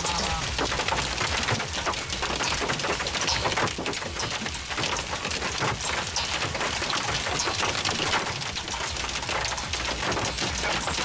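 Heavy wind-driven rain and hail drumming on a car's roof and windows, heard from inside the car: a dense, steady patter of many small hits.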